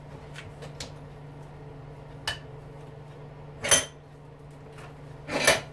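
Metal parts of a stripped-down electric lawnmower motor clinking and knocking as they are handled: a few light clicks, then two louder clanks in the second half.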